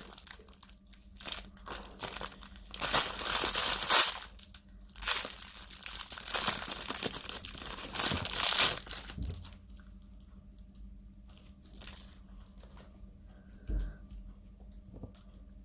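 Plastic packaging crinkling and tearing as a squishy toy is unwrapped, in several loud crackling bursts over the first nine seconds or so. After that come only faint handling noises and one soft thump near the end.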